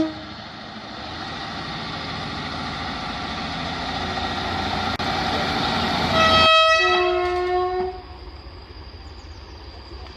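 Train rumble growing steadily louder, then a multi-tone train horn blast about six seconds in that lasts about a second and a half, its notes shifting partway through. The train noise then falls away.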